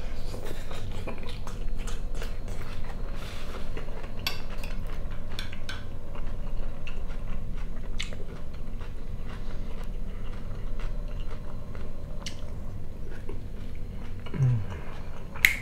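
Close-up chewing and mouth sounds of a man eating fried potatoes with chanterelle mushrooms, with scattered clicks of cutlery against the plate.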